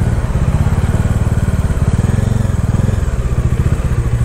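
Motorcycle engine running under way at a steady cruise, a low exhaust note with a fast even pulse.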